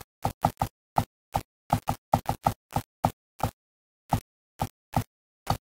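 Computer mouse clicking about eighteen times in quick, irregular succession, slowing toward the end, with dead silence between clicks.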